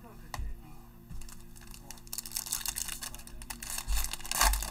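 Foil wrapper of a 2020 Panini Select football hobby pack crinkling and tearing as it is opened by hand, with a short tap about half a second in. The crinkling sets in about two seconds in and is loudest near the end.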